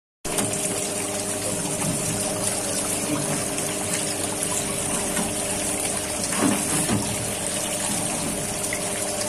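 Water spraying and splashing steadily from the perforated spray pipe of a seaweed washing machine into its tank, over the steady hum of the machine's electric water pump.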